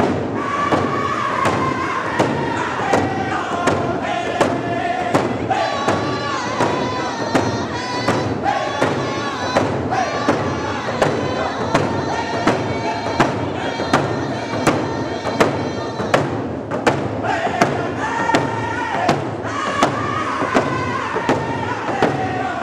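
A group of round dance singers singing in unison while striking hand drums together in a steady beat. The singing thins briefly about two-thirds of the way through while the drumbeat carries on.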